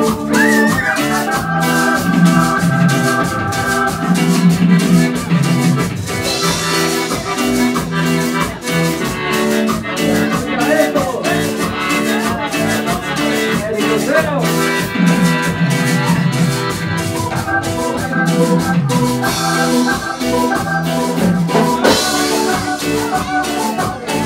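Cumbia dance music played loud, with a steady percussion beat under sustained chords.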